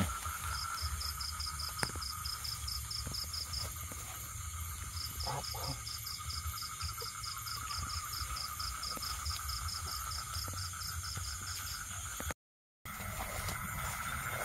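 Night chorus of frogs and insects: a steady trill with a rapid regular chirping, about five chirps a second, over a thin high hum. The sound cuts out completely for a moment about twelve seconds in.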